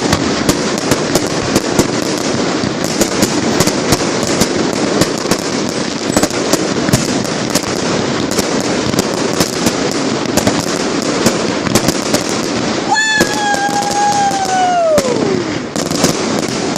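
Fireworks display: a dense, continuous crackling and popping of many small bursts. About 13 seconds in, a whistle holds its pitch, then falls away over about two seconds.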